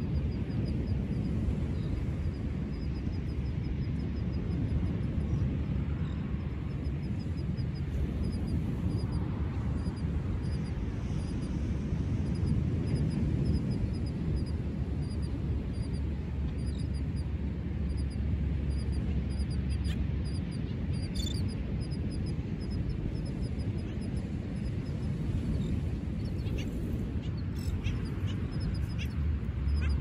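Steady low rumble of wind with a flock of seabirds giving short, barking calls, thickest around two-thirds of the way in and near the end.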